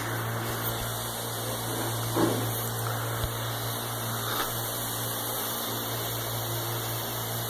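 Steady background hum and hiss, with one brief knock about two seconds in.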